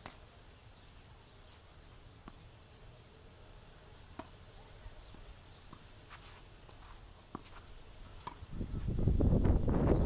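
Tennis rally: faint, sharp pops of racket strikes and ball bounces, one every second or two. About eight and a half seconds in, loud wind rumbling on the microphone sets in and drowns them.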